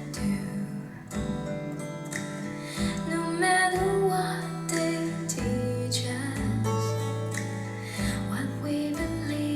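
A song's instrumental passage led by acoustic guitar, played back from CD through a Ruark Audio R5 signature edition music system.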